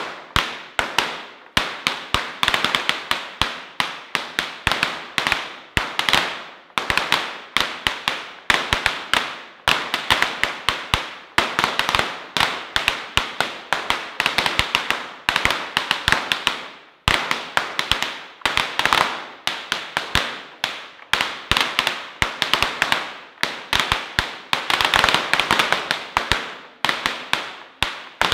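A long string of firecrackers going off in a rapid, irregular crackle of sharp bangs, coming in dense clusters with brief let-ups, echoing in a large hall.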